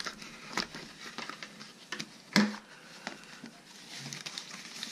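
Knife blade slitting the seam of a small cardboard box, with scattered scrapes and ticks and one sharper knock about halfway through. Near the end the box lid is pulled open.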